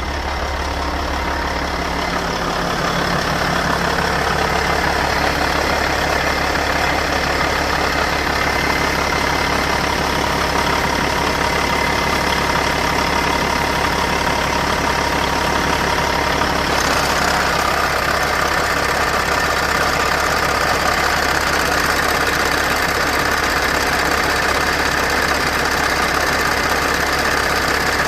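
Caterpillar C15 inline-six diesel running steadily at idle in a Kenworth T800, with a diesel clatter. The sound gets louder over the first few seconds, and a little over halfway through it turns brighter and hissier.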